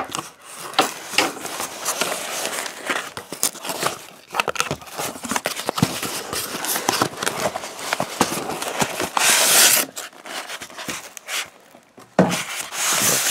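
Hands opening a taped cardboard box: cardboard and packing tape scraping, rustling and clicking, with a louder rasp lasting about a second around nine seconds in. Styrofoam packing rubs against the box near the end.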